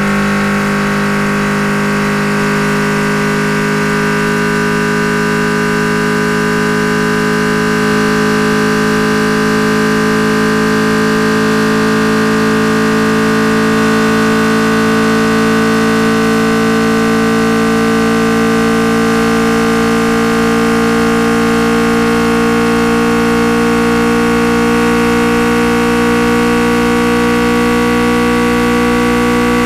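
Car engine and exhaust running steadily in a continuous drone, its pitch creeping slowly upward throughout.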